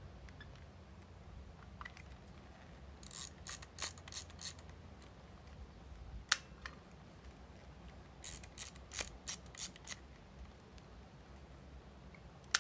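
Mirax Champy 35 plastic point-and-shoot film camera being worked by hand. A quick run of ratcheting clicks from the film advance is followed by a single sharp shutter click about six seconds in, then a second ratcheting run and another sharp click at the very end.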